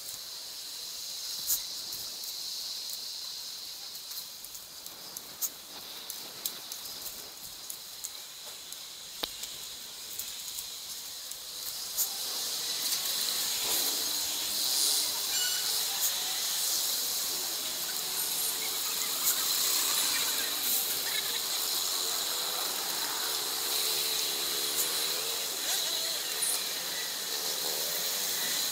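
Camera sound from a bicycle ride through city streets, sped up three times: a steady hiss with many sharp clicks and knocks. A little before halfway it gets louder, as busier road traffic comes in with wavering, sped-up pitched sounds.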